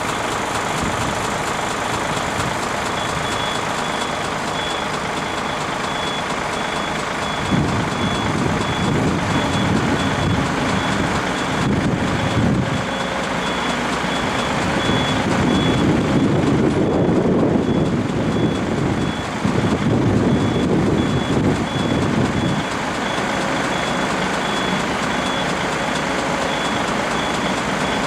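Heavy truck's reversing alarm beeping steadily, starting about three seconds in, over a running engine. The engine grows louder and heavier for about fifteen seconds in the middle, then settles back.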